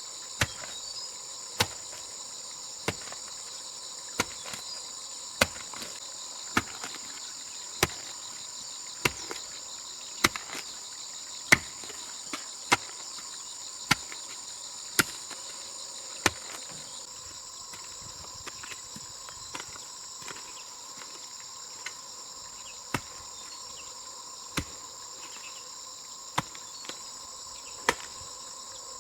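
Steady chorus of crickets, with sharp knocks about every second and a quarter that thin out to a few spaced knocks in the second half.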